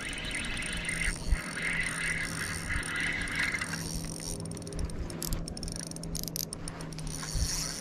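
Spinning reel being cranked, a whir for the first three to four seconds, followed by a few sharp clicks.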